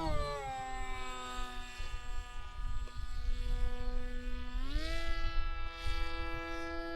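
Electric motor and propeller of a foam-board RC plane whining steadily in flight. The pitch drops about half a second in as the throttle is eased back, then rises again about four and a half seconds in as it is opened up.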